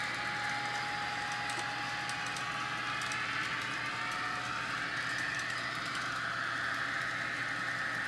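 Several N-scale model trains running: a steady electric-motor whine with small irregular clicks of wheels over the track joints.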